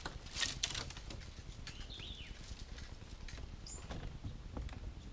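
Light rustling and scattered clicks, busiest in the first second, with one short downward-slurred bird call about two seconds in.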